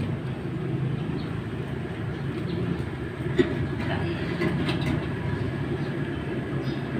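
Steady low rumble, with a few light knocks about halfway through as the homemade sheet-metal blower housing is handled and set down.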